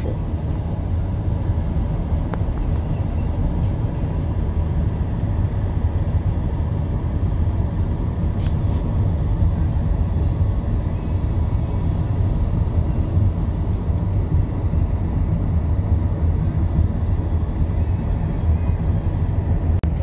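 Steady low rumble of road and engine noise inside a moving car.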